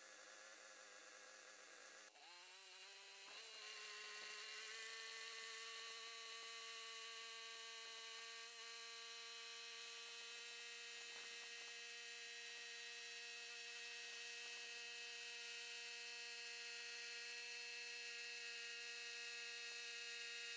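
Hardwood Mills GT40 portable bandsaw mill running as its blade cuts lengthwise through a large shining gum (Eucalyptus nitens) hardwood log, almost the log's full width. A steady hum whose pitch rises a few seconds in and then holds.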